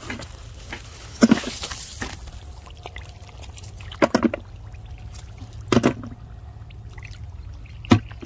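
Splashing and sloshing in shallow muddy water as a person wades and gropes by hand for mud snails: four separate splashes, about two seconds apart.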